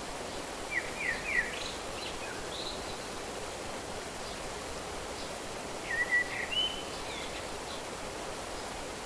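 Small songbird chirping in two short bursts, a few quick sliding notes about a second in and a brief warbling phrase about six seconds in, over a steady rushing background noise.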